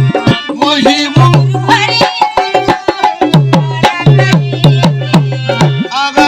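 Instrumental passage of Indian folk music: a tabla-type hand drum plays a quick, steady rhythm, its deep strokes bending in pitch, under a melodic accompaniment.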